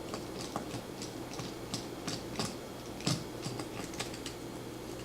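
Small hard objects being handled on a work surface: a run of light, irregular clicks and taps, a few a second, as tools and items are moved aside and a screwdriver is picked up.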